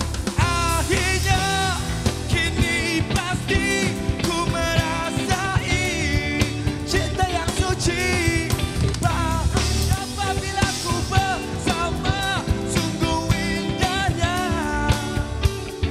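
A live rock band performing, with a male lead singer singing over drums and guitar.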